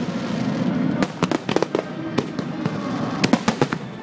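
Fireworks going off: many sharp bangs and cracks at irregular spacing, coming in quick clusters about a second in and again near the end.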